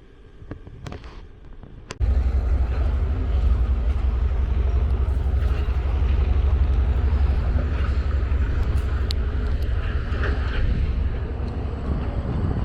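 Water rushing over the filled Kebena Dam, a loud steady roar with a heavy low rumble that starts abruptly about two seconds in.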